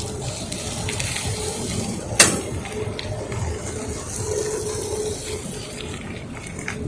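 Small dog eating: irregular chewing and mouth noises, with one sharp click about two seconds in.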